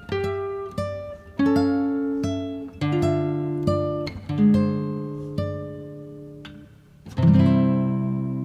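Background music on a plucked acoustic guitar: single notes picked one after another, each ringing and fading. A fuller chord is struck about seven seconds in and left to ring out.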